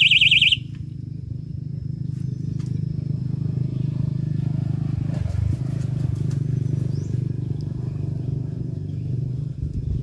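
An electronic fishing bite alarm sounds a loud, fast-warbling high tone that stops about half a second in. A steady low hum follows, with a few faint clicks and ticks.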